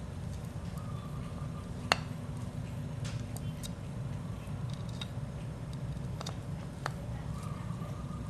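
A screwdriver clicking against the metal body of an OS 46AXII two-stroke model engine while the carburettor is worked loose: a handful of scattered sharp clicks, the loudest about two seconds in. A steady low hum sits under them.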